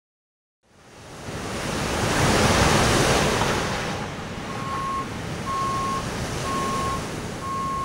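Ocean surf fading in out of silence, a steady wash of breaking waves. About halfway through, a high beep starts repeating about once a second, four times.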